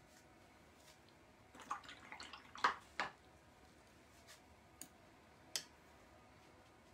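Paintbrush dipped and swished in a cup of rinse water, with a cluster of taps and splashes about two seconds in, then a couple of faint clicks of the brush against the container.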